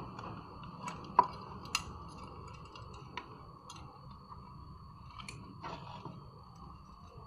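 A few scattered small clicks and taps of cable plugs, wires and tools being handled while an active speaker's amplifier module is wired up, the sharpest about a second in.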